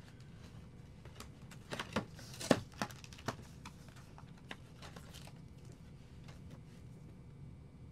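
A trading-card hobby box and its packs being handled as the box is opened: a run of light clicks and taps, thickest and loudest around two and a half seconds in, then sparser.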